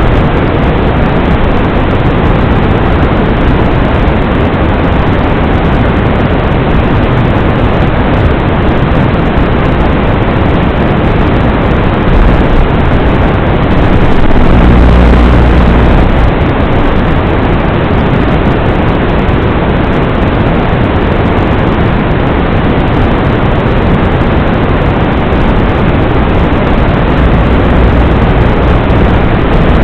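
Loud, steady rushing noise with no distinct pitch, swelling briefly in the low end about halfway through.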